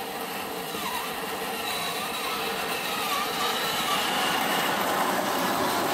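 1/6-scale remote-control M5 Stuart tank driving over gravel: its electric drive motors and gearbox whine while the tracks clatter on the stones, growing louder as it comes closer.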